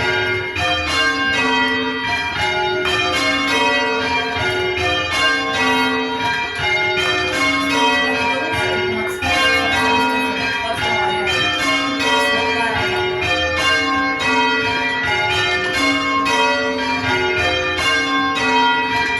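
Church tower bells rung full circle by a band of ringers. The bells strike one after another from highest to lowest, over and over in a steady repeating sequence.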